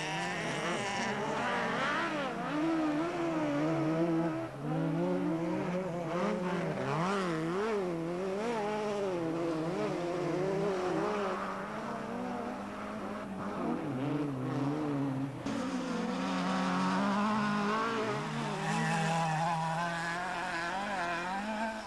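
Autocross race car engines revving hard, their pitch rising and falling over and over as the cars accelerate and lift through the turns.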